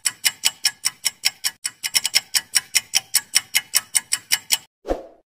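Fast, even clock-ticking sound effect for a quiz countdown timer, about seven ticks a second, stopping near the end, followed by one brief low sound.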